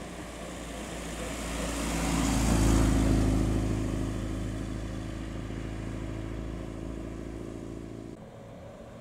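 Small classic Mini-based saloon's four-cylinder A-series engine driving past at low speed. The engine note swells to its loudest about three seconds in as the car passes, then fades as it pulls away, and cuts off abruptly shortly before the end.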